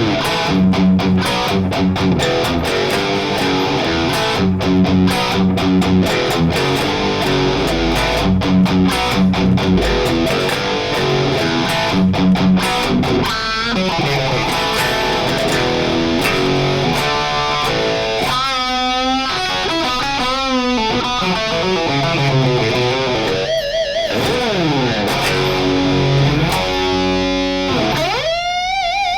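Distorted electric guitar through a Friedman BE-Mini solid-state amp, playing an '80s-metal riff. Fast palm-muted chord chugs fill the first half, then lead lines with wide vibrato, ending on a note bent upward.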